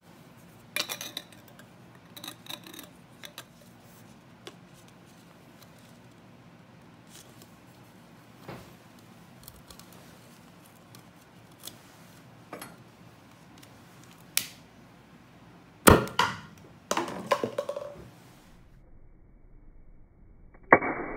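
Hands handling an empty aluminium drink can and a paper cup on a tabletop: scattered light taps and clicks, with a cluster of louder knocks and rattles a little past halfway and a sharp click near the end.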